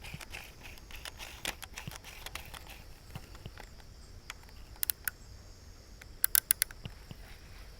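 Outdoor ambience with a steady high insect drone, broken by scattered sharp clicks, including a quick run of loud clicks near the end, over a low rumble.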